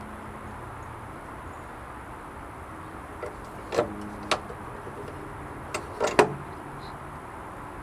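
Handling of door hasp latch hardware and tools on a wooden gate: a handful of short, sharp clicks and knocks, two close pairs around four and six seconds in, the last the loudest, over a steady low background hum.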